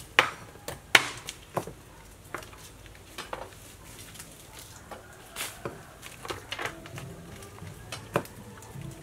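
Knife knocking irregularly on a wooden cutting board as lemongrass is sliced, the two loudest knocks in the first second.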